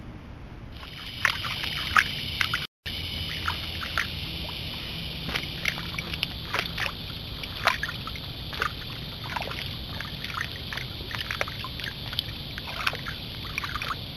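Steady shrill chorus of night insects, with irregular splashes and knocks of white-tailed deer stepping through a shallow creek.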